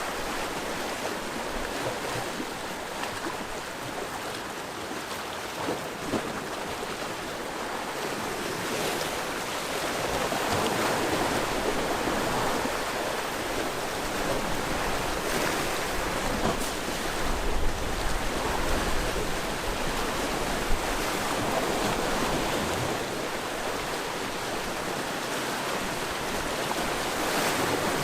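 Sea waves washing against the shore in a steady surf, swelling louder about ten seconds in and again between about sixteen and twenty seconds. Wind buffets the microphone now and then.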